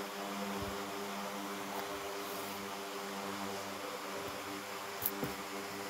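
A steady low machine hum over a soft hiss, with a faint click about five seconds in.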